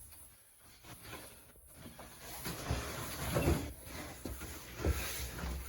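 Scuffing and handling noise from a refrigerator being moved on an appliance dolly, with a few dull low knocks in the second half.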